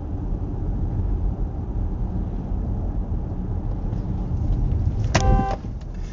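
Steady road and engine rumble heard from inside a moving car, then a single short car horn blast about five seconds in, lasting about half a second.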